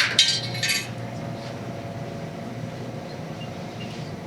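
A short burst of clinking in the first second, like a metal token dropping into a vending machine's coin slot, then a steady low hum.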